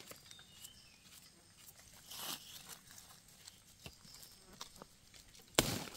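Quiet scraping and rustling as a knife trims soil from the base of freshly dug egg-stage wild Amanita mushrooms held in the hand, amid leaf litter, with a short louder rustle near the end.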